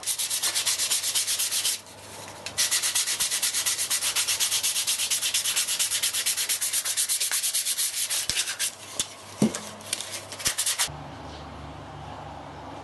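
Hand sanding of pallet wood, sandpaper rubbed back and forth in quick, even strokes about five a second. There is a short pause about two seconds in, and the strokes turn slower and uneven before stopping near the end.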